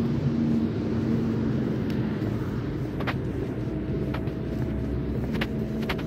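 Low steady rumble of road traffic, with an engine hum that fades away over the first couple of seconds and a few sharp clicks.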